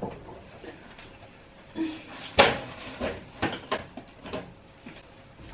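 Built-in kitchen fridge being opened and a head of cabbage put inside: a series of short knocks and clicks from the door and shelves, the loudest about two and a half seconds in.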